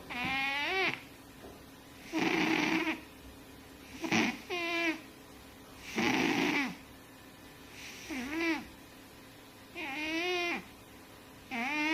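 Overweight domestic cat snoring in its sleep, a snoring breath about every two seconds. Some breaths carry a squeaky, whistle-like pitch that bends up and down; others are a rough rasp.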